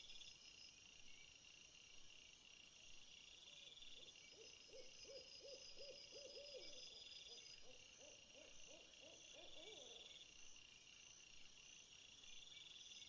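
Faint insect chorus of crickets chirping in steady, evenly pulsed high trills. From about four to ten seconds in, a run of rapid low hooting notes joins it.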